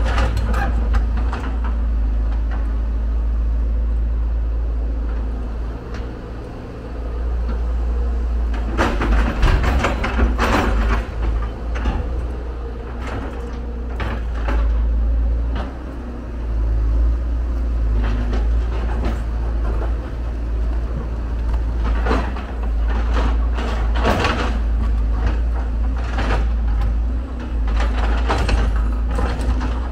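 Hyundai R170W wheel excavator's diesel engine running with a steady low rumble as it digs earth and rock and loads a dump truck. Bursts of clattering and knocking from the steel bucket scraping and striking rocky soil and the load tipping out come several times over the steady engine sound.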